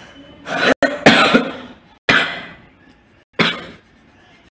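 A person coughing: four loud coughs over about three seconds, each starting sharply and trailing off.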